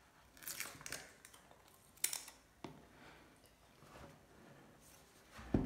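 A sticker being peeled and a cardboard smartphone box handled in the hands: short scraping rustles and small clicks, with a louder thump near the end.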